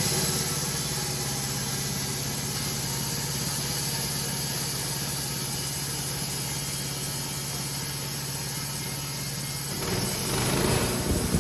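Engine of a Wood-Mizer LT15 portable sawmill running steadily at an even pitch. About ten seconds in, a louder, rougher noise comes in over it.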